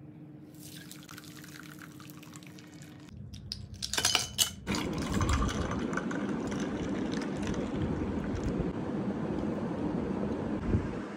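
Watermelon juice being poured: first through a wire mesh strainer into a glass bowl, then in a steady stream filling a tall glass. A few sharp knocks come about four seconds in, between the two pours.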